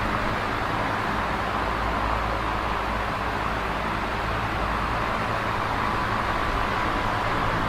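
Large box fan running steadily on high: an even rush of air with a low motor hum underneath.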